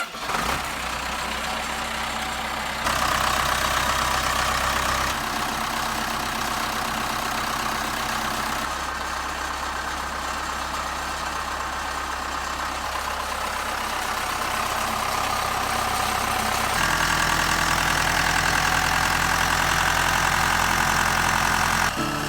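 Case 590 Super L backhoe's diesel engine running steadily, just after being remounted and started following pump repairs. The sound steps up abruptly about three seconds in and again near the end.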